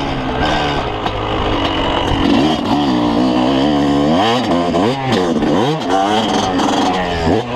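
Yamaha YZ250's single-cylinder two-stroke engine under load while riding a motocross track, revving up and dropping in pitch several times as the throttle is worked.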